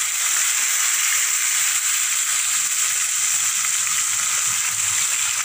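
Pieces of tilapia fish frying in hot oil in a pan: a steady sizzle.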